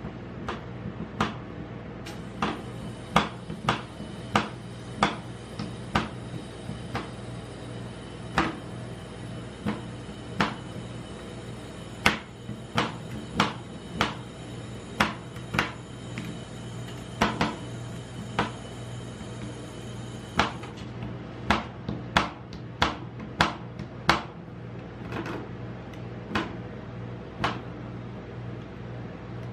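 Metal spatula blades striking a steel ice-cream cold plate again and again as they chop chocolate bars into frozen cream, sharp clacks at an uneven pace of one or two a second. A steady low hum runs underneath.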